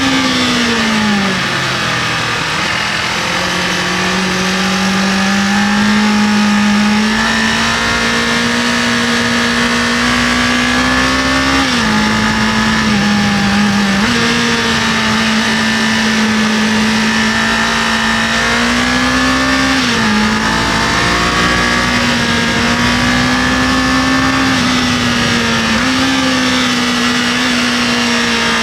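Kawasaki KLE500 motorcycle engine running under way, its pitch mostly steady but dipping and coming back up a few times as the throttle is eased off and reopened, with wind noise rushing over it.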